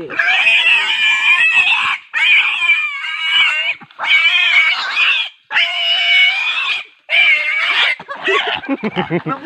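Captured wild pig squealing: about six long, loud squeals in a row, each lasting one to two seconds with short breaks between them.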